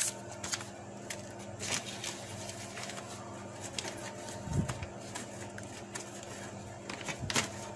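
Faint, scattered clicks and scrapes of a screwdriver and a thin tool prodding the plastic paper-feed parts of an inkjet printer, working loose a small object jammed in the feed, over a steady low hum.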